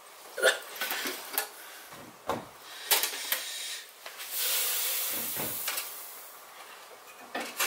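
Light knocks and clatter of hard plastic parts, with a longer rustling scrape about four seconds in, as a green plastic roll cage is handled and set down on a shelf.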